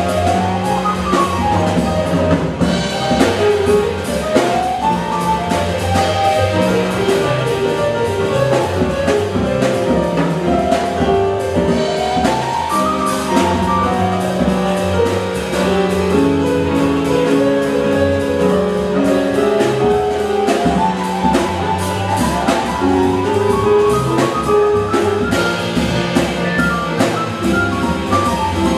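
Small jazz combo playing live: keyboard lines over upright bass and a drum kit with steady cymbals.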